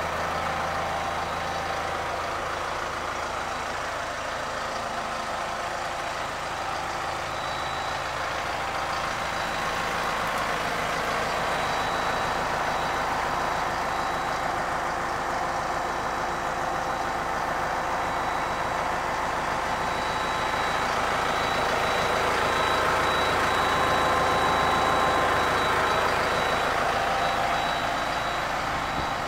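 Kubota M5111 tractor's diesel engine idling steadily, with a thin high whine coming and going over it.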